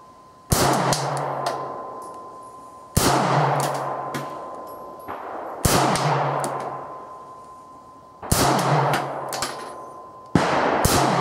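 Five single shots from a Boberg XR9-S 9mm pistol, fired slowly about two and a half seconds apart. Each sharp crack is followed by a long ringing echo under a corrugated metal range roof.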